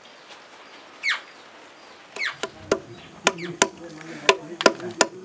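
A wooden stick pounding cut bark and stems in a wooden trough: sharp knocks about every half second, starting about halfway through. Before that, a few quick falling bird calls.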